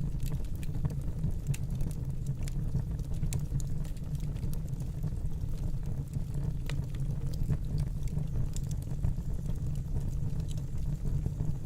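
Wood fire burning in a fireplace: a steady low rumble of the flames with irregular sharp crackles and pops from the burning wood.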